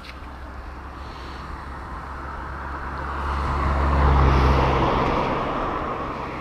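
A motor vehicle passing by. The engine drone and road noise swell to a peak about four seconds in, then fade away.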